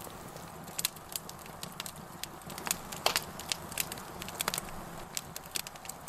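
Wood campfire crackling, with irregular sharp pops over a faint steady hiss.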